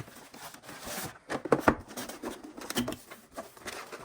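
Cardboard packaging and parts being handled out of a box: irregular rustles and light clicks and knocks.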